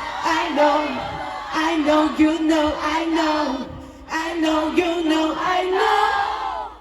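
Live pop song heard through a fan's recording in a crowd: a sung melody over amplified backing music, with whoops and yells from the audience.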